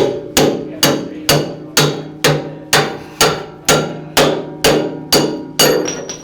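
A hammer striking metal over and over at a steady pace of about two blows a second, each blow ringing briefly. The blows stop shortly before the end.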